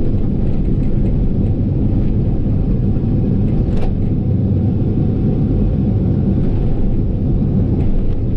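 Komatsu PC88 excavator's diesel engine running steadily while the machine swings and lifts stumps, a constant low rumble with one brief knock about four seconds in.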